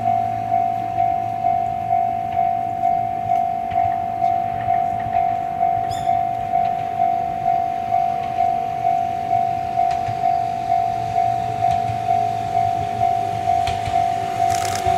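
Japanese level-crossing warning bell ringing steadily at about three dings a second, warning of an approaching Ohmi Railway electric train (set 101F). The train's running noise grows under it near the end as the train draws close.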